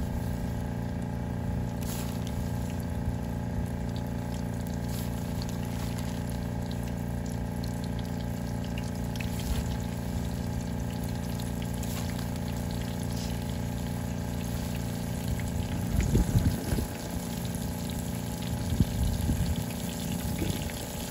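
Floured chunks of snapping turtle meat sizzling and crackling in shallow oil in a skillet over a gas burner, over a steady low rumble. Louder low rumbles come twice in the last few seconds as more pieces go into the pan.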